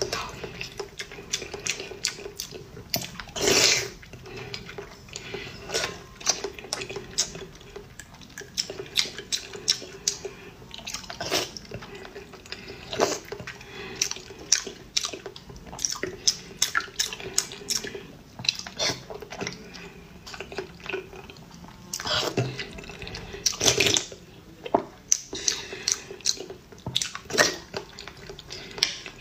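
Close-miked eating sounds: wet chewing and mouth clicks on hard-boiled eggs, broken by several loud slurps of chili broth from a spoon, the loudest about three and a half seconds in and twice between twenty-two and twenty-four seconds in.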